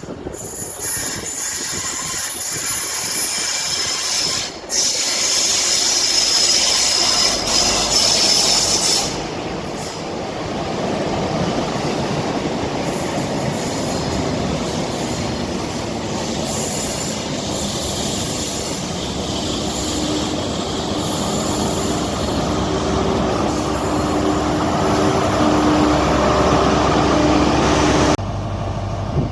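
Great Western Railway passenger train running along the rails, with wheel squeal loudest a few seconds in and a steady low hum building later. The sound cuts off abruptly near the end.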